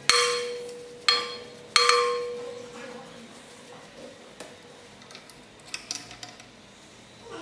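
Three sharp metallic clanks, about a second and then half a second apart, each ringing out, from metal parts at a key cutting machine's clamp being handled. Faint light taps and brushing scrapes follow as the clamp is brushed clean of metal shavings.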